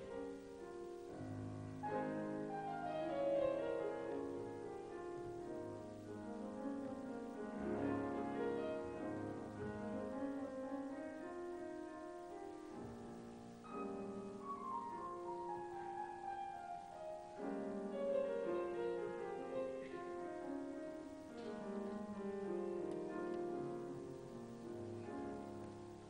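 Classical piano music, playing recurring downward runs of notes.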